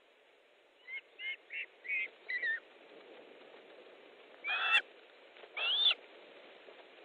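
Osprey calling from the nest: a quick series of short whistled calls, then two longer, louder calls, the last one rising and then falling in pitch.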